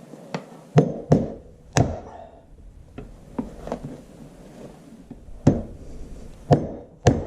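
Hammer blows, about ten sharp strikes at uneven intervals with short pauses between groups, knocking the old neoprene seal out of a Farmall Super MTA rear axle bearing cap.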